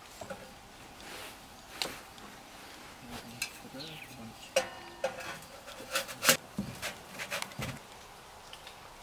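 Metal camp cookware being handled: scattered clinks and knocks, some ringing briefly, busiest in the second half with the loudest clank a little past the middle.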